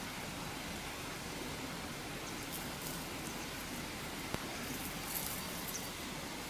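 Steady, even hiss of outdoor background noise, with a few faint high chirps and one sharp click a little over four seconds in.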